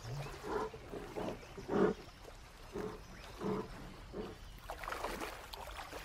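Brown bear breathing hard as it swims, a run of short, low breaths about once a second that fade out in the last couple of seconds.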